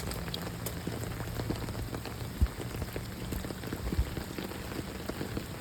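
Heavy rain falling steadily, with many individual drops ticking close to the microphone and two dull thumps, about two and a half and four seconds in.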